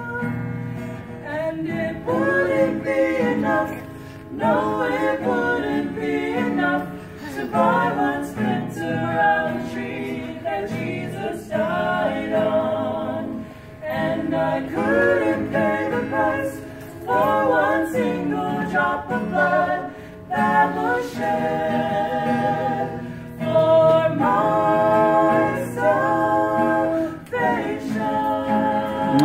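Vocal trio singing a hymn in phrases to a strummed acoustic guitar.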